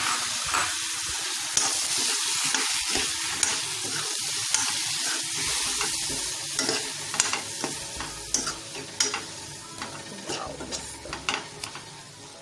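Watery masala paste sizzling in hot oil in a wok, stirred with a perforated metal ladle that scrapes and clicks against the pan. The sizzle fades steadily, and the ladle's clicks come more often in the second half.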